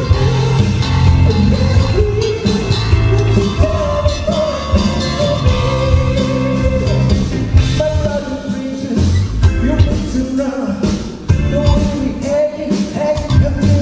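Live rock band playing, with a lead singer over keyboard, electric guitar and drum kit.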